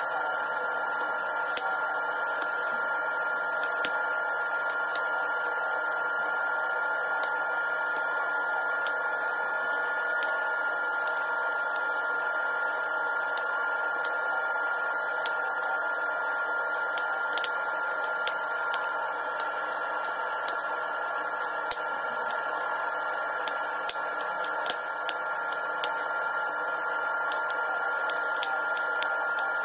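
Chef's knife slicing carrots on a wooden cutting board: scattered, uneven clicks of the blade meeting the board, faint under a steady hiss with a constant high tone.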